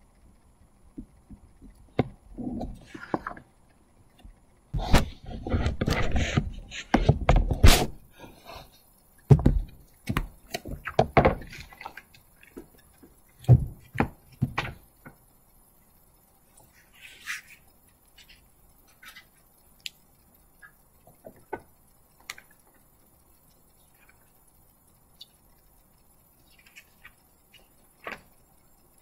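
Scattered thumps, knocks and rustling from people moving about in a quiet room. They are densest in the first half, loudest a few seconds in, and thin out to occasional faint clicks.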